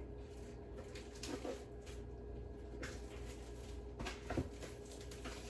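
Faint handling sounds of frozen chicken legs being pried apart from the paper they are frozen to: a few soft taps and crinkly scrapes over a low steady hum.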